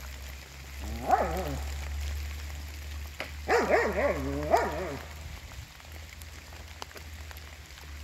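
Steady rain pattering, with two short bursts of pitched, wavering vocal calls: one about a second in, and a longer run of several calls around four seconds in.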